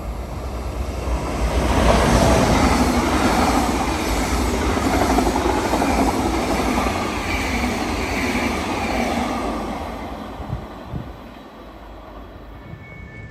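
A train passing through the station on the tracks: it grows loud over about two seconds, holds for several seconds, then fades away. Two steady chime tones begin just before the end.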